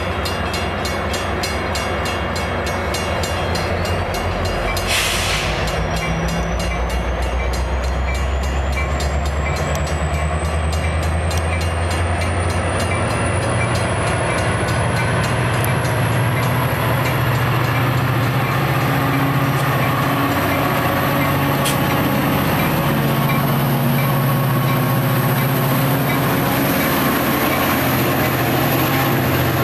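Diesel-electric commuter locomotive, a Metra MP36PH-3S with an EMD 645 prime mover, running with a steady low drone that climbs in pitch as the engine throttles up to pull the train away. A brief burst of sound comes about five seconds in, and a thin high whine rises over the next dozen seconds.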